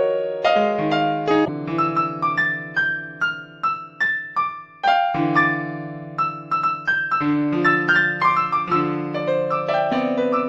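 Solo piano music: a run of single notes and sustained chords, with a brief pause about five seconds in.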